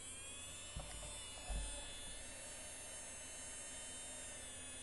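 JosLove electric nail drill (e-file) handpiece running with a steady high electric whine. Its pitch rises a little near the start as the speed is turned up. Two soft low thumps come about a second in.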